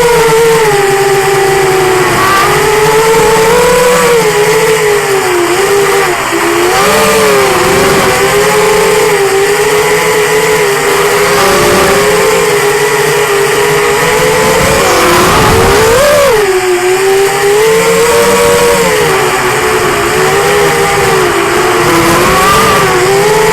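Whine of a QAV210 racing quadcopter's four 2204 2300Kv brushless motors and propellers, heard close from the onboard camera. The pitch rises and falls constantly with the throttle, with a sharp drop and surge about fifteen seconds in.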